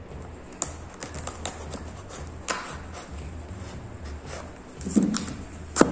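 Small pocket knife scraping and prying at the glued flap of a cardboard box: scattered clicks and scratches, with a louder knock about five seconds in and a sharp click just before the end.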